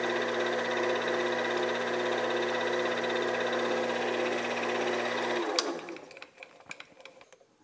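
Mini lathe running steadily with a motor whine, then switched off about five and a half seconds in and spinning down quickly, followed by a sharp click. A few faint clinks come after it.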